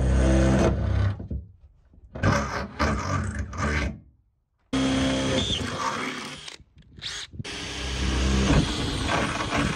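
DeWalt XR cordless drill boring a hole through the van's sheet-steel roof, run in four bursts with short pauses between.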